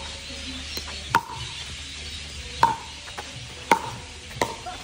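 Pickleball paddles striking the ball in a rally: four sharp, ringing pocks about a second apart, with fainter taps between them.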